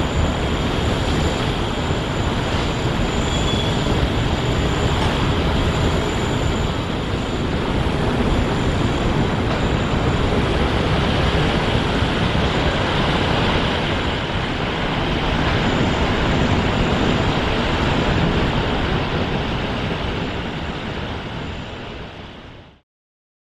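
Jet engines of a Boeing 737 freighter rolling out along the runway after landing, a loud, steady rushing noise that fades away near the end.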